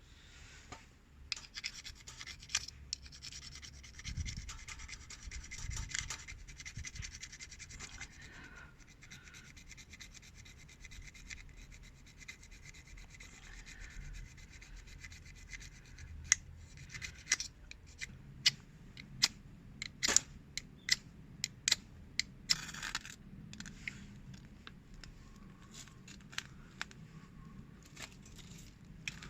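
Ferrocerium fire-starter rod being scraped with its striker: repeated scratching strokes, with a quick run of sharp, hard strikes a little past the middle.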